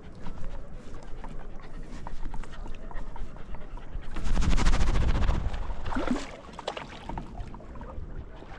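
A dog panting close up, quick breathy breaths that grow louder for a couple of seconds in the middle.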